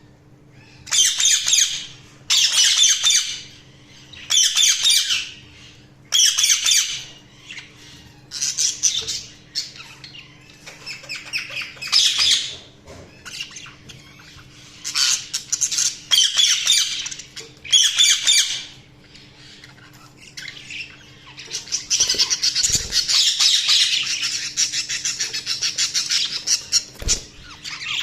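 Budgerigars chirping and squawking in short bursts every second or two, then breaking into a continuous chattering warble for about five seconds near the end.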